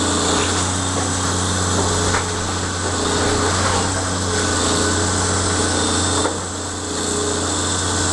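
Heavy demolition machinery running steadily with a constant engine hum, with a few short cracks and crunches as the house is torn down.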